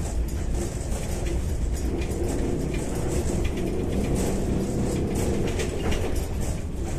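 Interior ride noise of a Kyiv-12.03 trolleybus under way: a steady low rumble from the road, an electric traction hum that comes up in the middle, and light rattling of the body.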